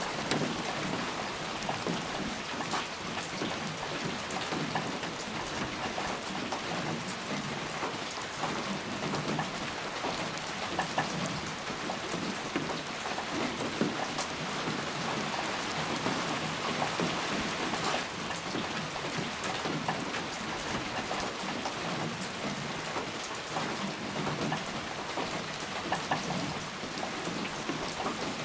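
Steady rain falling, with many separate raindrop hits ticking through a constant hiss.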